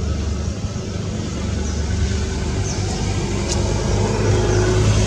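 A motor vehicle engine running steadily off-screen, a low, even rumble, with a few faint high chirps over it.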